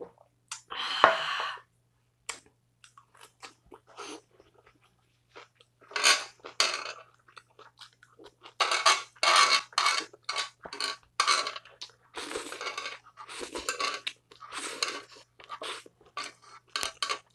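Close-miked mouth sounds of chewing and crunching grilled samgyupsal (pork belly), in many short bites, with a faint steady low hum underneath.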